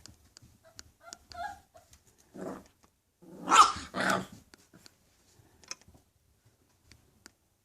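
English Bulldog puppies making a few faint short squeaks, then two loud barks in quick succession about three and a half seconds in.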